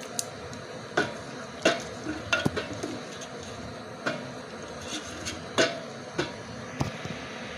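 A spoon stirring beef stew in a metal sufuria, knocking and clinking irregularly against the pot's side and rim.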